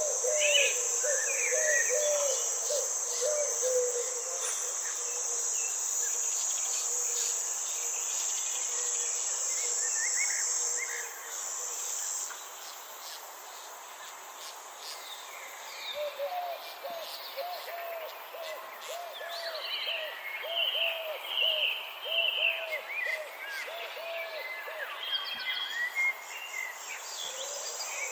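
Garden ambience: insects trilling in a steady high buzz that stops about twelve seconds in and comes back near the end, with birds chirping and a bird repeating a long run of short, low, rising-and-falling notes in the second half.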